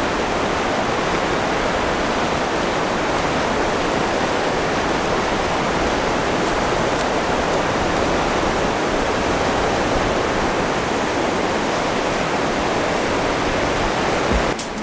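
Ocean surf breaking along the beach, a steady even rush of water noise with no pauses. A couple of faint clicks come near the end.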